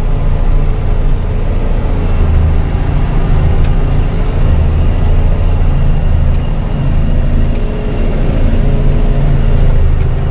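Truck engine running steadily, heard from inside the cab, with a few light knocks and rattles as it drives over a rough dirt road.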